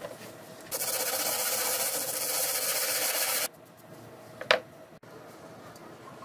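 Small concrete disc rubbed by hand on sandpaper: a steady scratchy rasp lasting about three seconds that stops abruptly, followed about a second later by a single sharp click.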